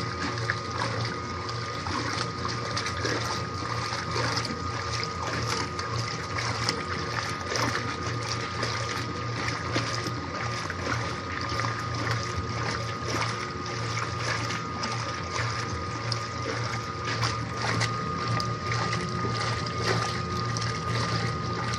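Mueller Plus washing machine washing rugs: a steady motor hum with a constant high tone, and water sloshing and splashing irregularly.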